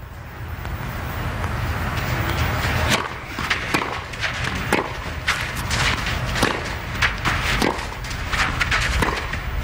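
Tennis rally: a serve about three seconds in, then a series of sharp racket strikes on the ball, with bounces and footfalls between them, over a steady low background of crowd noise.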